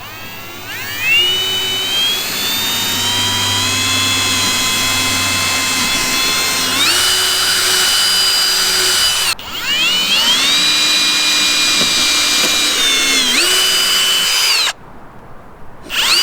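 Power drill boring mounting holes: the motor whines up to speed, runs steadily and steps higher in pitch partway through. It stops about nine seconds in, starts again, then cuts off and starts a third time near the end.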